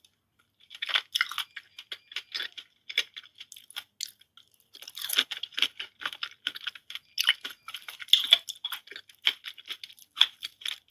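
Close-miked chewing and crunching of fresh fruit: a quick, irregular run of crisp, wet crunches and mouth clicks, with short pauses at the start and about four seconds in.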